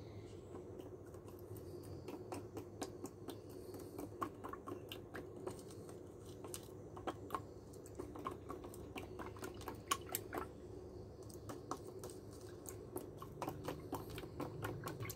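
Small spoon stirring pH calibration buffer solution in a thin plastic cup to dissolve the powder: light, irregular clicks and taps of the spoon against the cup, over a faint steady hum.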